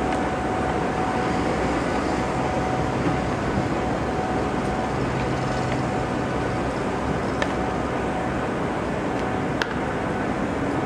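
Steady outdoor background noise with a faint steady tone running through it, broken by a few short clicks.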